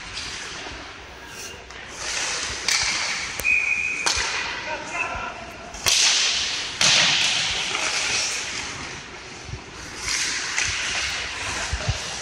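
Ice hockey play heard from the stands: skate blades hissing and scraping on the ice in repeated swells, with several sharp cracks of sticks, puck and boards. A brief high-pitched tone sounds about three and a half seconds in.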